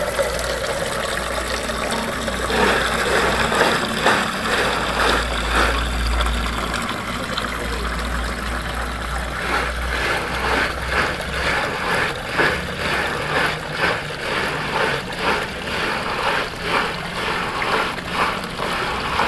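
Water pouring steadily from a pipe and splashing into water below, with an uneven splashing pulse in the second half.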